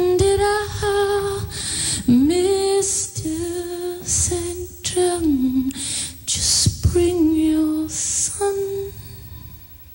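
A woman singing a cappella, holding long notes with slides down in pitch, until the singing stops shortly before the end.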